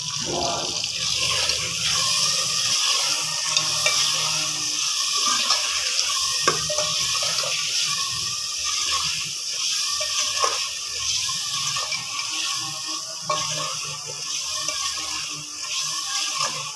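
Chopped tomatoes, chillies and spice masala sizzling in a metal handi as a metal spoon stirs them, scraping and clinking against the pot now and then.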